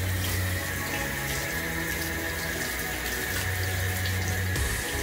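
Handheld shower head spraying water steadily onto a dog's wet coat in a bathtub, the water hissing and running off into the tub.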